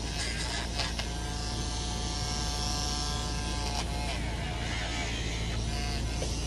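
Electric rotary nail grinder running steadily as it files down a dog's black nails. A clearer whining tone rises over the motor hum from about a second in until nearly four seconds in.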